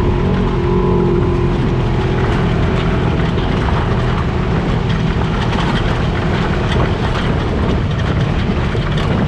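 Side-by-side off-road vehicle's engine running at a steady pace while driving along a rough dirt track, with frequent small rattles over the engine sound.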